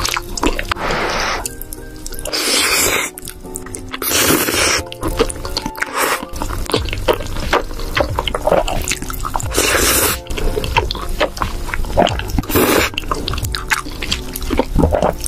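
Close-up wet slurping of creamy pasta noodles and sauce off a spoon and fork, in several separate slurps each under a second long, with small wet mouth clicks between them. Background music runs underneath.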